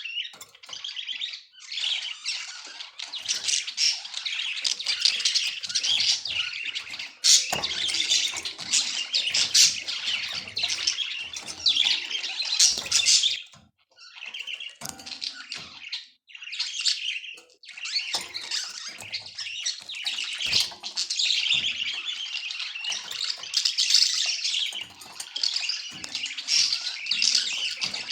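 Budgerigar warbling and chirping in a fast, continuous chatter, with a couple of brief pauses about halfway through.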